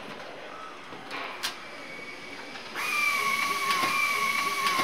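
Car assembly line noise: light clatter and clicks, then about three seconds in a loud steady hiss with a high whine starts.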